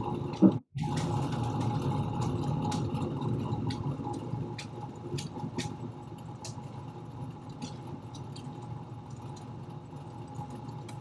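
Steady background noise with a faint hum, picked up through a video-call microphone, with irregular faint clicks. A short pop about half a second in is followed by a momentary audio dropout, and the noise eases slightly after a few seconds.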